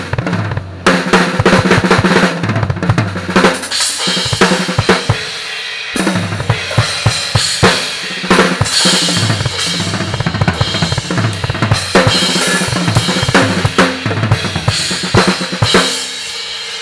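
Drum kit played hard, with rapid kick, snare and tom hits under a wash of Anatolian cymbals. Near the end the hits stop and a cymbal rings on as the sound fades.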